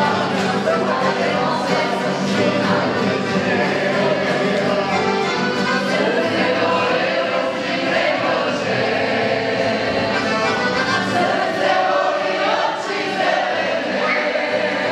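A group of people singing a Croatian song together, accompanied by accordion and acoustic guitars.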